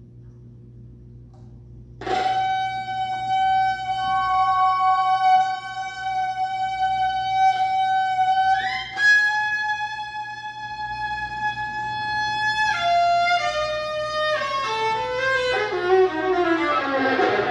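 Viola being bowed. After about two seconds of quiet low hum it plays a long held high note, slides up to a second held note, then moves into a run of falling notes that gets quicker. Near the end the run turns into a dense, noisy flurry.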